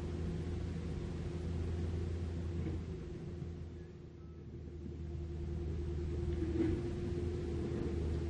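Mini excavator's diesel engine running with a steady low drone, dipping briefly about four seconds in and coming back up.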